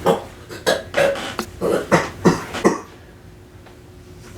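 A person coughing, about eight short hacking coughs in quick succession over roughly three seconds, then quiet room noise.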